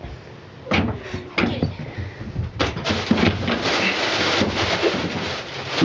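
A Belgian Malinois puppy bumping a plastic baby gate and a fabric pet tunnel on the floor: a few sharp knocks and rattles, then about three seconds of rustling and scraping.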